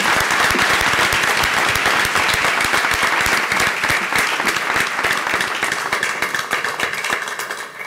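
Audience applauding, many hands clapping at once; the applause dies down over the last few seconds.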